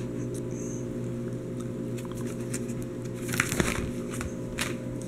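Plastic sleeve pages of a trading-card binder being handled and turned: scattered soft crinkles and clicks in the second half, the densest a little after the middle, over a steady low hum.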